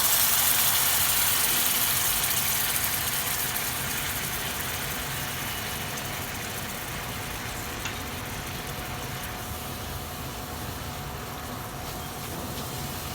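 Tomato puree sizzling in hot oil with chopped garlic and oregano in a pan, loudest just after it goes in and settling to a quieter steady sizzle. A single light tap about eight seconds in.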